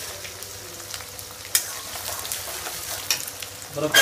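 Shallots and dried red chillies frying in hot oil in a stainless steel kadai, sizzling steadily while a steel spatula stirs them, clinking sharply against the pan a few times.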